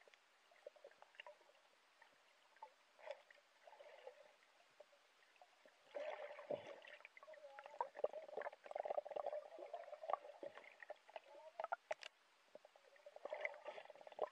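Muffled underwater water noise heard through a submerged camera: faint scattered clicks at first, then louder sloshing and gurgling from about six seconds in, with one sharp click near the end.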